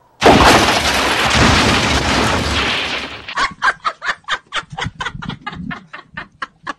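A loud crash-and-explosion blast that starts suddenly and fades after about three seconds, then a woman laughing hard in rapid ha-ha bursts, about five a second.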